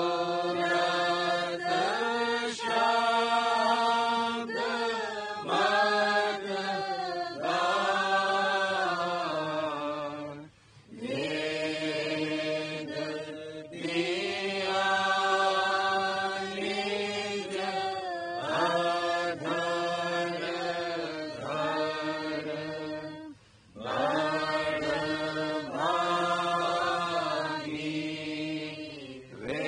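Devotional chanting in long, held phrases that glide slowly in pitch, breaking off briefly twice, about eleven and twenty-three seconds in.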